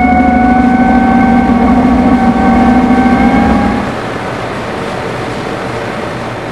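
Tractor running its PTO shaft against a dynamometer under heavy load: a loud whine that climbs slowly in pitch as the test ramps up, over a deep hum. At about four seconds the whine stops and a quieter steady running noise is left.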